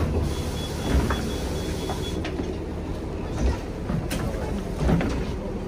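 Interior of a city transit bus: steady low engine and road rumble with rattles and a few knocks, and a faint high-pitched beeping for about two seconds near the start.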